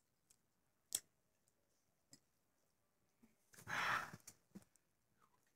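A few faint sharp clicks, then one breathy exhale lasting about half a second, about four seconds in.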